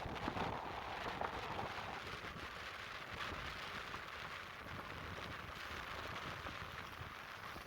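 Atlantic surf washing onto the beach, a steady hiss that is fuller for the first couple of seconds, with a low rumble of wind on the microphone.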